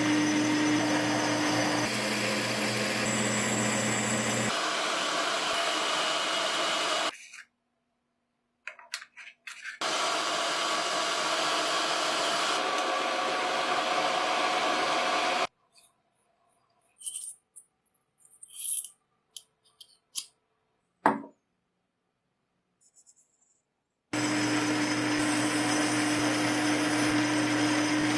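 An electric power tool's motor running steadily in several stretches, each stopping abruptly, with a steady hum whose pitch drops a little about two seconds in. Between the runs there are quiet gaps with a few small clicks and one sharp knock about 21 seconds in.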